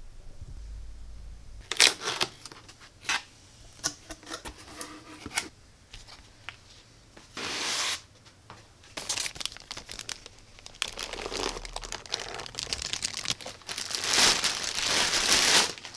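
Security camera box being opened by hand: irregular crinkling, rustling and crackling of packaging, with a longer tearing sound near the end.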